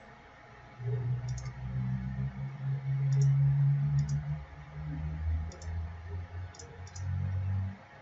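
Several computer mouse clicks as folders are opened in a file browser. A low hum that shifts in pitch a few times runs under them from about a second in until near the end.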